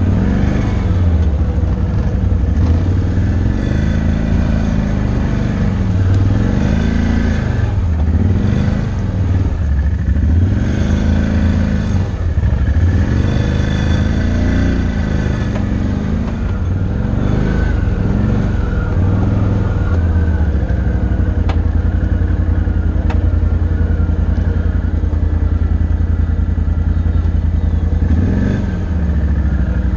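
Can-Am Outlander ATV engine heard from the rider's seat, its revs rising and falling again and again over the rough trail, then holding steadier through the last several seconds.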